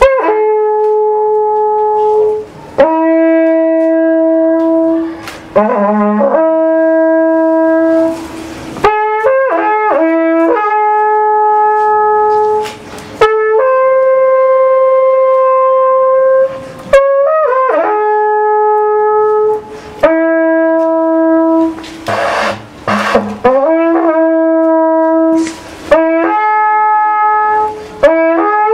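Long curved wooden shepherd's horn (róg pasterski) playing a tune of long held notes, each lasting one to three seconds. The held notes are linked by quick ornamental flicks between pitches and split by short breaks.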